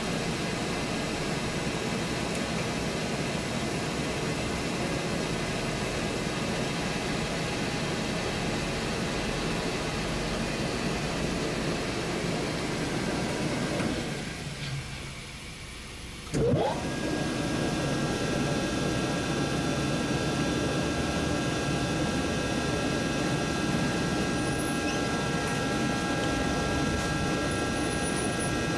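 Rotary screw air compressor running with a steady hum. About 14 seconds in the sound sinks for a couple of seconds, then returns with a quick rising whine and a jolt, and it runs steadily again with a higher hum added.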